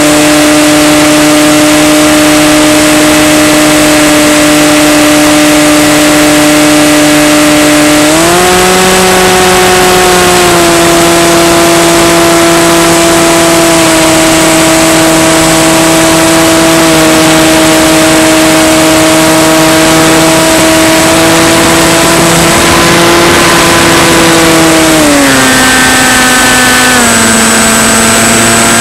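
Electric motor and propeller of a Skywalker FPV model plane, heard through the onboard camera's mic as a steady, loud whine. The pitch steps up about eight seconds in as the throttle is opened, then drops in two steps near the end as the throttle is eased off for the descent.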